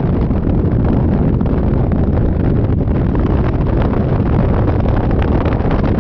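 Heavy wind noise buffeting the microphone of a Yamaha Majesty 400 scooter at riding speed. The rush is steady and deep, with no letup.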